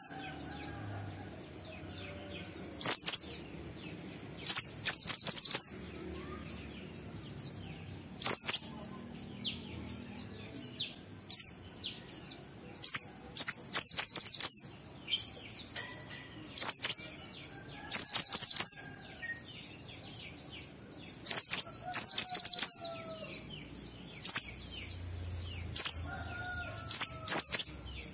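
A white-eye (pleci) sings in the 'ngalas' style. It gives short bursts of fast, high twittering notes, each under a second long, repeated every one to three seconds.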